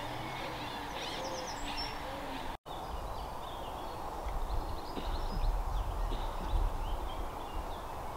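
Outdoor birdsong, with many small birds chirping and whistling and a few low hooting calls in the first two seconds. The sound cuts out briefly about two and a half seconds in, and a low rumbling noise swells in the second half.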